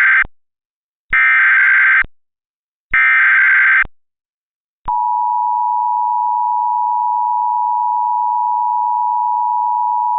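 Emergency Alert System tones: the end of one SAME header data burst and two more like it, each a harsh electronic warble about a second long with short gaps between them. About halfway through, the steady two-tone EAS attention signal starts and holds.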